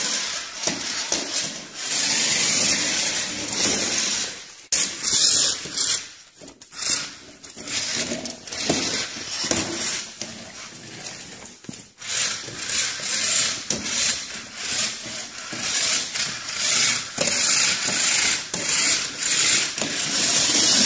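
Small remote-control toy car's electric motor and gears whirring and clattering as it drives across a hardwood floor. It runs in spurts, with brief stops about five and twelve seconds in.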